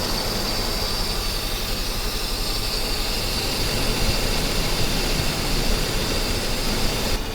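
Mercedes-Benz 560SEL's V8 engine idling steadily with a high whine over it, running a little rough even after new spark plugs and plug wires.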